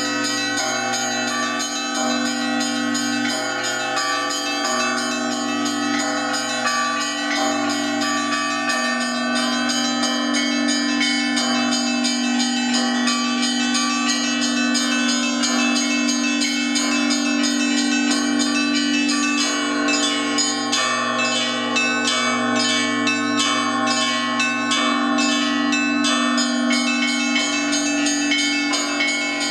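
Russian Orthodox church bells rung by one ringer: small treble bells struck in quick patterns over the sustained hum of the larger bells. The clappers are pulled by ropes while the bells hang still. The strikes grow denser and quicker from about twenty seconds in.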